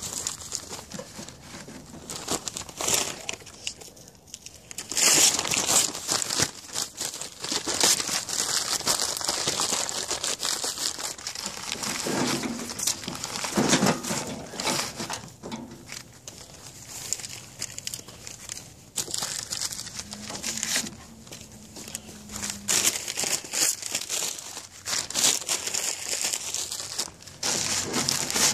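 Tinder being crumpled and torn by hand: irregular crinkling and tearing that comes and goes, getting busier about five seconds in.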